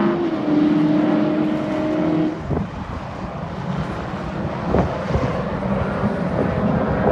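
Racing car engine passing on a circuit, its steady note dropping in pitch near the start and then fading about two seconds in. Other cars' engines carry on more quietly, swelling briefly a couple of times.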